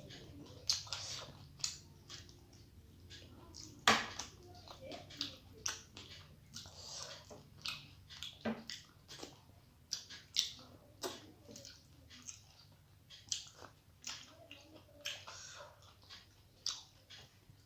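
Close-miked eating: chewing and wet mouth smacks, with irregular sharp clicks about once or twice a second.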